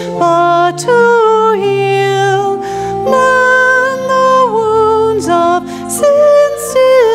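A woman singing a hymn with piano accompaniment, in slow held notes that move step by step.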